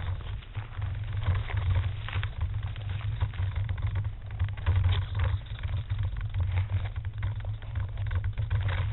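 Handling noise from a small camera's microphone: a steady low rumble with irregular scraping rustles as it rubs against cloth and brushes through leafy branches.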